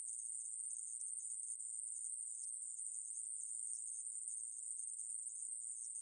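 Aemaeburi conehead katydid (a Ruspolia species) singing: one continuous high-pitched buzz that never breaks.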